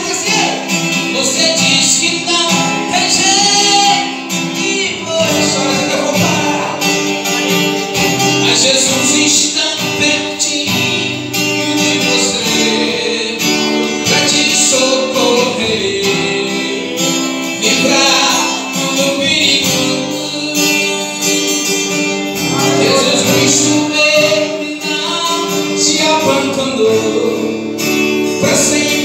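A man singing a Portuguese-language gospel song into a microphone while playing guitar, heard through a PA loudspeaker.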